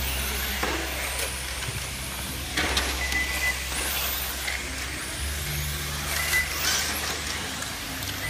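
Radio-controlled touring cars racing around a track, their motors and tyres coming up in hissy bursts over a steady low hum.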